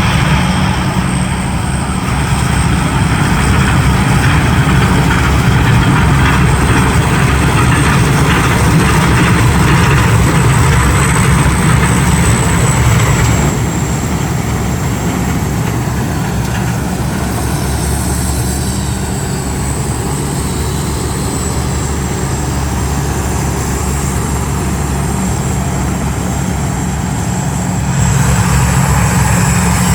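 Combine harvester running steadily under working load: a heavy engine drone with a thin, high steady whine over it. It grows a little quieter about halfway through and louder again near the end.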